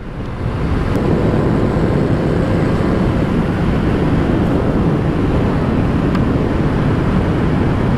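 Yamaha XJ6 inline-four motorcycle engine running steadily at a constant cruising speed of around 60 km/h, under heavy wind rush on the rider's onboard microphone.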